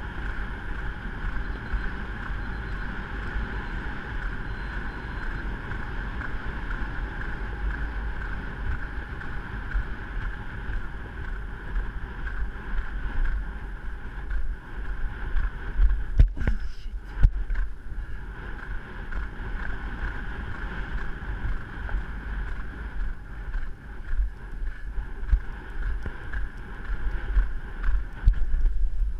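Wind rushing over the microphone with a steady low rumble, as on a camera carried at a gallop, broken by a few sharp knocks about sixteen seconds in.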